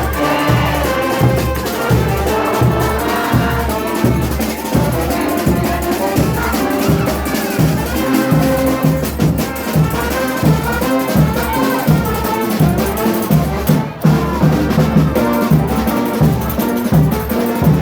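Frevo played by a brass band over a fast, steady drum beat.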